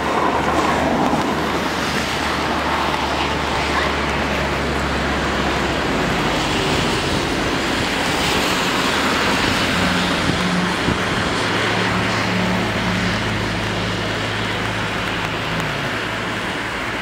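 Road traffic: a steady wash of noise with the hum of vehicle engines. A low engine drone fades about six seconds in, and another, higher hum runs from about ten to sixteen seconds.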